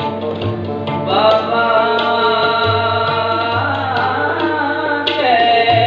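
Sikh shabad kirtan: singing over harmoniums and tabla, with the harmonium tones held steady under a gliding vocal line and regular tabla strokes.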